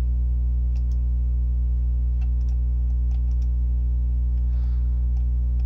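Steady low electrical mains hum with its overtones, picked up in the recording, with a handful of faint computer mouse clicks scattered through it.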